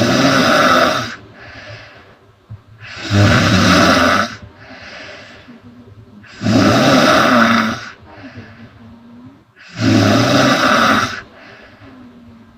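A woman snoring loudly in a steady rhythm: four long snores about three seconds apart, each lasting over a second, with a quieter breath between them.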